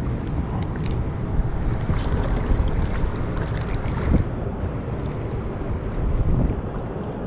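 Steady rushing of water below a spillway, heaviest in the low end, with a few faint clicks.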